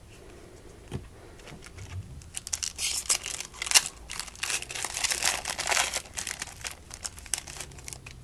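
A baseball card pack's wrapper being torn open and crinkled: a dense run of crackling that starts about two seconds in and stops near the end.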